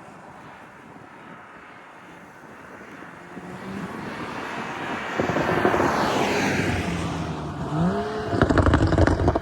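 BMW X3 M40i's turbocharged straight-six engine and sport exhaust getting louder, with a quick rise in engine pitch near the end. This is followed by a burst of rapid exhaust crackles and pops over about the last second.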